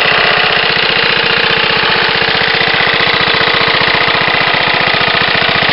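1963 Briggs & Stratton 2.5 hp, 8 cubic inch single-cylinder four-stroke lawn mower engine running steadily, with a fast, even beat of firing strokes.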